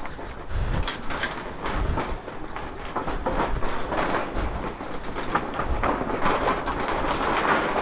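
Motorcycle crossing a rickety bridge deck of mixed wooden planks and iron, the loose boards clattering and knocking under the wheels in an irregular rattle with dull low thumps.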